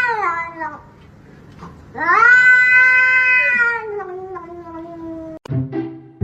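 A cat yowling in long drawn-out calls: one call trails off at the start, then a second rises, holds and slowly sinks away, with a sharp click near the end.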